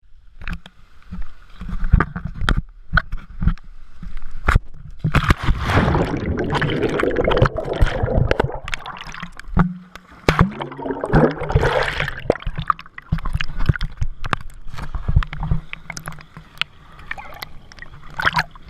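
Water sloshing and gurgling close to the microphone, with many sharp taps throughout. There is a louder rush of water from about five to twelve seconds in.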